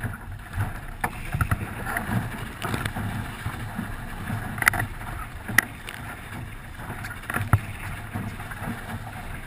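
Small sailboat moving fast through choppy water: a steady rush of water and spray along the hull, with wind on the microphone. A few sharp slaps of the hull meeting waves, the loudest about five and a half seconds in.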